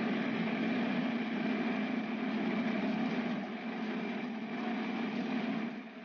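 Diesel engine of site machinery running steadily with a constant low hum, dropping off near the end.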